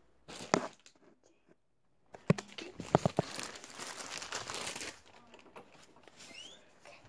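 Handling noise of a phone being carried: cloth rubbing and rustling over the microphone, with a few sharp knocks and clicks about two to three seconds in.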